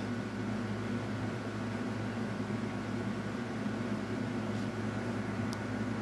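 Steady background hum and hiss, with a faint click about five and a half seconds in.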